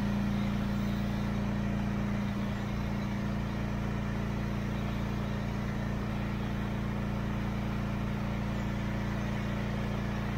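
Gas-engine 4000 PSI pressure washer running steadily with a low hum, its spray hissing against the combine's sheet metal.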